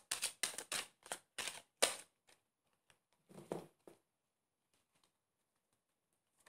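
Tarot cards being shuffled by hand: a quick run of crisp card slaps and clicks, about four or five a second, for the first two seconds. A soft thud follows about three and a half seconds in.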